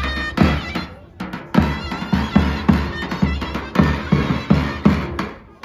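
Davul and zurna playing a folk dance tune: the shrill, reedy zurna carries the melody over heavy, regular strokes on the large davul drum, about three a second, with a brief lull about a second in.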